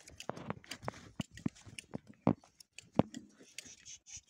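Hand shears snipping through sheep's fleece: an irregular run of crisp cuts, with two louder snips past the halfway point.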